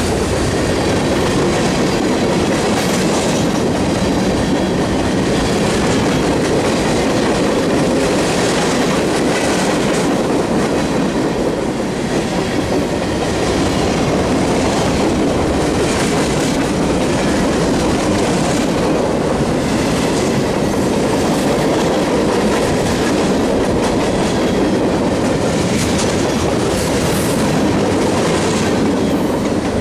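Freight train cars rolling past close by: a steady loud rumble and rattle of steel wheels on the rails, with a run of clicks as the wheels pass over rail joints.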